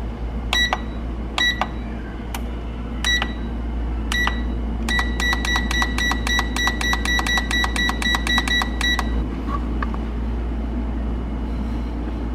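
GoWISE USA air fryer control panel beeping as its buttons are pressed: a few single beeps about a second apart, then a fast even run of about five beeps a second for some four seconds as the timer key is held and the time counts up to 30 minutes. A steady low hum runs underneath.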